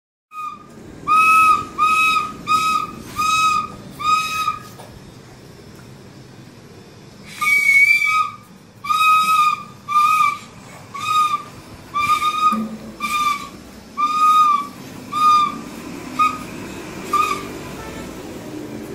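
Toy flute blown by a small child in short toots on one high note: five quick ones, a pause of a few seconds, then about ten more.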